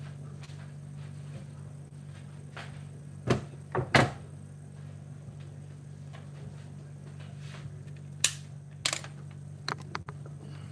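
Heavy wooden chopping board knocking as it is set down and shifted on the metal grates of a gas hob: a cluster of sharp knocks about three to four seconds in, the loudest just after four, and a few more near the end, over a steady low hum.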